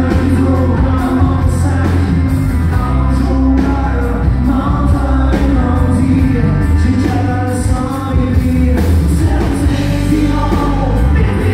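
Amplified live band playing: a man singing lead over acoustic and electric guitars and drums.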